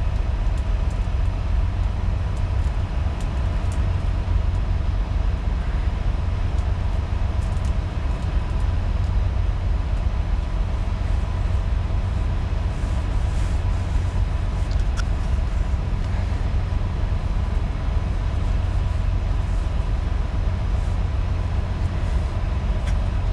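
Steady low rumble of an idling engine, with faint steady humming tones over it and a few light clicks.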